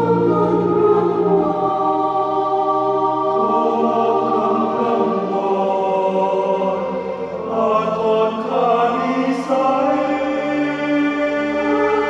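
Mixed choir singing sustained chords in several parts, the harmony shifting to a new chord about halfway through and the bass moving again near the end.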